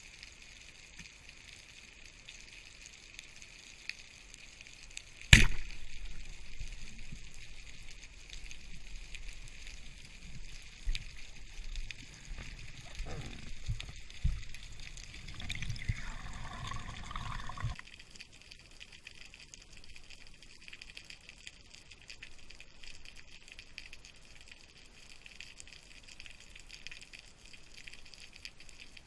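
Underwater spearfishing ambience with a steady hiss, broken about five seconds in by one sharp, loud crack of a speargun shot. Low churning and rustling follow for about twelve seconds and then stop suddenly.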